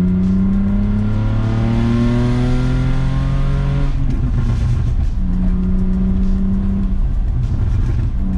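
BMW E39 sedan's engine and exhaust, heard from inside the cabin, accelerating in gear with a steadily rising pitch. About four seconds in there is a break for a manual upshift. After it the engine holds a steady deep drone that drops away and comes back near the end.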